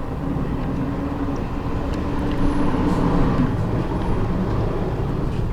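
Steady low rumble of a vehicle, swelling slightly about three seconds in. A low steady hum runs under it and fades out about half a second later.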